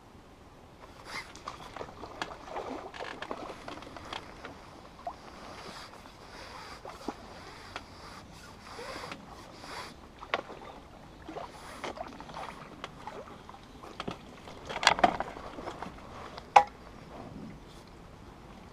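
Water splashing and tackle knocks as a hooked carp is played on a pole and netted, with scattered knocks and rustles, a louder burst of splashing and handling about fifteen seconds in, and one sharp knock shortly after.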